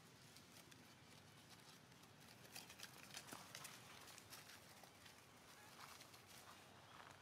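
Faint crackling and rustling of dry fallen leaves underfoot, a scatter of short clicks that is busiest a few seconds in.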